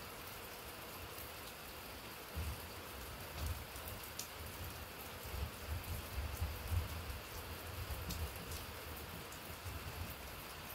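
Steady rain falling, with a few sharper drips. From about two seconds in a low rumble rises and falls unevenly underneath the rain.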